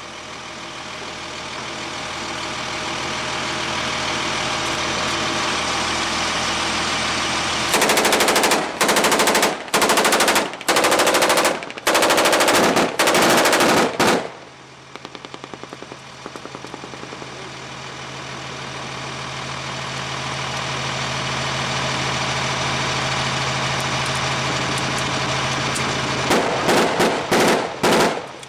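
A belt-fed machine gun firing bursts: five long bursts about eight to fourteen seconds in, and several short ones near the end. A vehicle engine runs steadily underneath the bursts.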